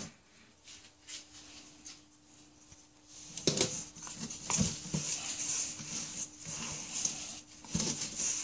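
Wooden spoon stirring and folding thick, sticky whole-wheat bread dough in a stainless steel bowl, scraping and knocking against the metal. It starts about three and a half seconds in after a quiet moment.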